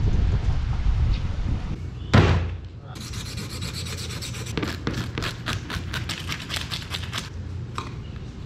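Car road noise for about two seconds, cut off by a loud thump. Then a kitchen knife is sharpened in a run of quick scraping strokes, several a second, for about four seconds.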